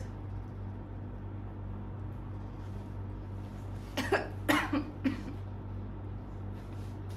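Three or four short coughs in quick succession about four seconds in, over a steady low background hum.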